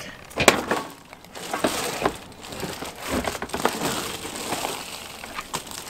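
Crinkling and rustling with scattered small clicks, as a black plastic part is handled and slid across a reflective foil mat, with a sharp click about half a second in.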